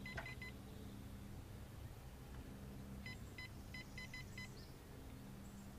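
Key-press beeps from a Humminbird 898c SI side-imaging sonar unit as its buttons are pressed to move the cursor: a quick run of about four short high beeps at the start, then a second run of about seven beeps about three seconds in.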